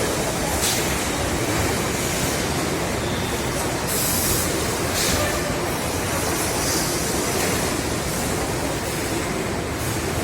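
Steady machinery noise of an automated chest freezer production line, with short hissing bursts several times.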